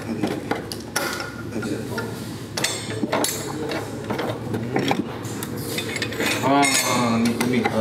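Metal clinks and rattles from a hand tool working on the front steering linkage of a riding lawn mower, being worked on because the mower won't steer.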